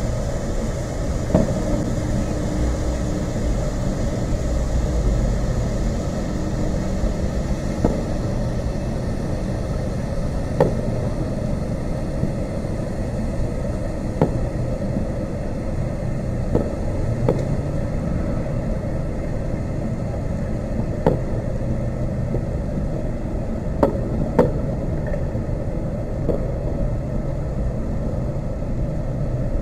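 Aerial fireworks shells bursting, heard from a distance as about ten sharp bangs at irregular intervals over a steady low rumble.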